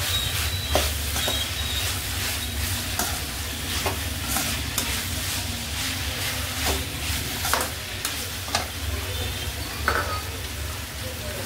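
Slotted steel spatula scraping and clinking irregularly against an iron kadai as ivy gourd (tindora) pieces are stirred, over a steady sizzle of the vegetables frying in oil.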